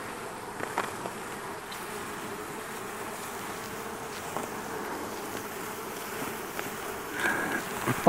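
A large cluster of honey bees buzzing steadily, a dense hum of many bees stirred up as they are brushed off the comb in a tree stump.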